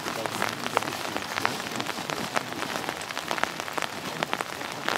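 Steady rain falling, with many sharp, irregular drop taps close to the microphone.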